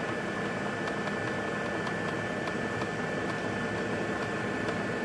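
Tefal oil-less air fryer running with ribs and sauce inside: a steady fan whir and hum with a thin high whine, and a few faint ticks.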